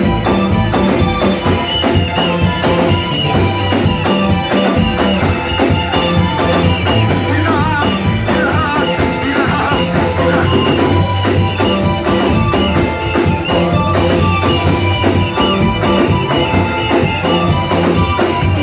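Live worship band music with a drum kit keeping a steady beat.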